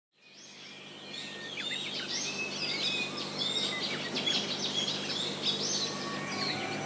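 Many birds chirping and calling at once, a dense chorus of short, quick high notes, fading in from silence over the first second. Music begins to come in under it near the end.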